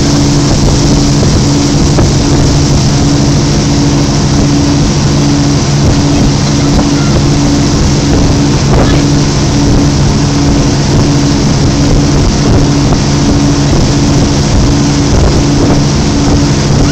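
Motorboat engine running steadily under way, a constant drone, with the rush of wind and churning wake water around it.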